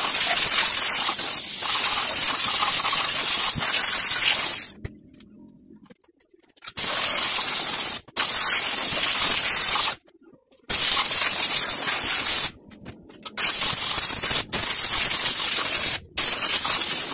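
Handheld spray gun with a red canister spraying cleaner into a car's engine bay, a loud hiss in a series of triggered bursts of one to five seconds, each cutting off abruptly.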